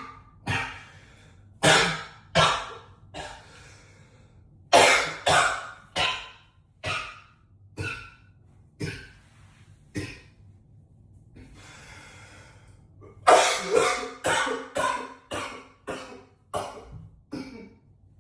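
A man coughing hard and repeatedly in short bouts of one to three coughs, echoing in a bathroom. About two-thirds of the way through there is a drawn-out breath, then a fast run of coughs.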